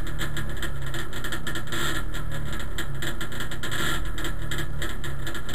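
Trabant's two-cylinder two-stroke engine idling, heard from inside the stripped race car's cabin. It runs with a fast, even pulse, and the sound swells slightly about every two seconds.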